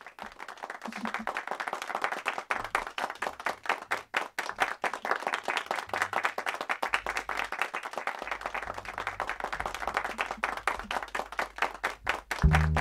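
Audience applauding, a steady dense clapping. Near the end the band starts to play, with low bass notes.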